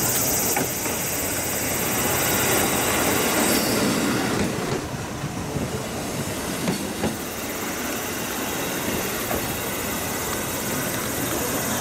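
JR Kyushu KiHa 125 single-car diesel railcar pulling into the platform and passing close by, its engine and wheels running steadily. The sound eases after about four seconds as it slows to a stop, with a few light clicks from the wheels.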